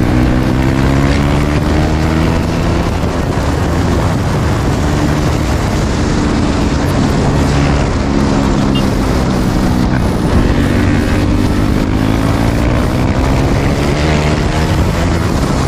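Single-cylinder motorcycle engine running hard at fairly steady revs while riding, its pitch drifting gently up and down, under a heavy rush of noise.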